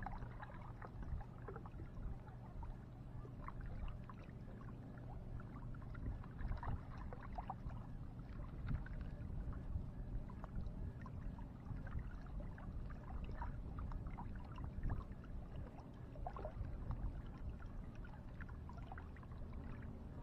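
Small lake waves lapping and splashing irregularly against shoreline rocks, over a steady low rumble.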